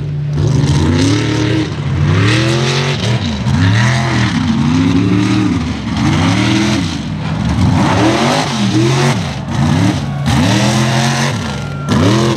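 Mega truck's engine revving hard again and again, its pitch climbing and falling about once a second as the throttle is worked.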